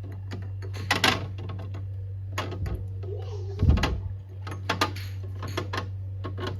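Objects being set down and arranged by hand: a string of light clicks and knocks, with a heavier thump about three and a half seconds in, over a steady low hum.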